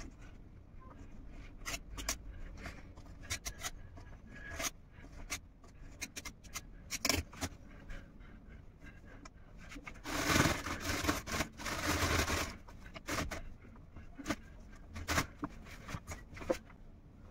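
Crusts being cut off slices of bread with a knife: scattered light taps and scrapes. About ten seconds in there is a louder stretch of continuous noise lasting about two seconds.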